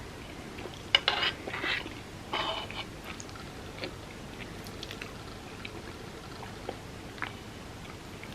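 Close-up eating sounds: a sharp bite about a second in, followed by two short bursts of crackly crunching, then quieter chewing with scattered small mouth clicks.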